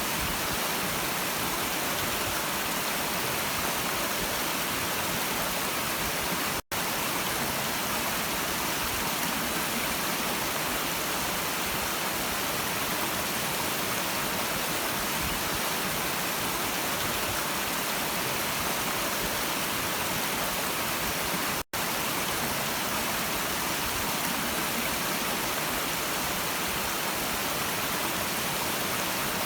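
Stream water running steadily, an even rushing hiss. It cuts out for an instant twice, about seven and twenty-two seconds in.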